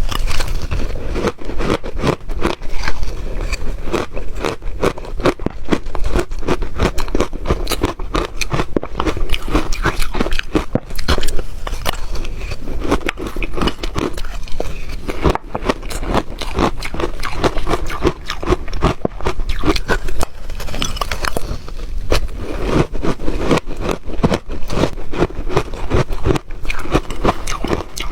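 Close-miked chewing of ice: a continuous run of rapid, sharp crunches and crackles as the ice is bitten and ground between the teeth.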